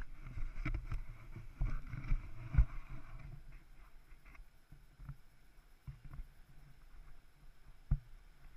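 Handling noise from an action camera being set in place on a raft: a run of knocks, rubbing and heavy thumps for about three seconds. After that it goes quieter, with a few separate knocks while the raft floats on calm water.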